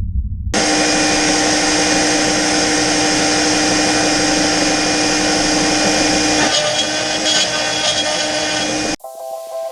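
Shapeoko 3 XXL CNC router's spindle running at speed, carving pine, a loud steady whine with several held tones that changes character about six and a half seconds in. It cuts off abruptly near the end as guitar music starts.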